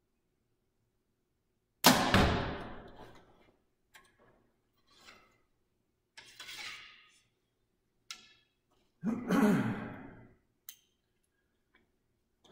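2014 PSE Dominator compound bow shot: a sudden sharp crack at release that rings down over a second or so. Quieter clicks and rustles of the next arrow being loaded follow, with a second loud, breathy rush about seven seconds after the shot.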